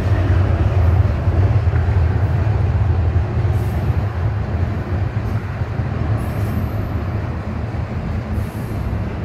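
Double-stack container freight train rolling past close by: steady low rumble of the railcars' wheels on the rails.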